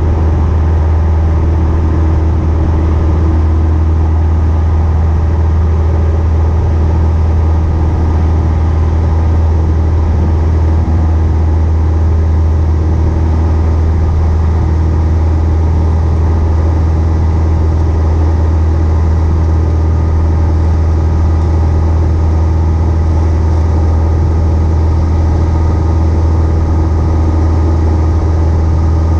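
Piston engine and propeller of a single-engine light airplane running steadily under power in the climb: a loud, unchanging drone.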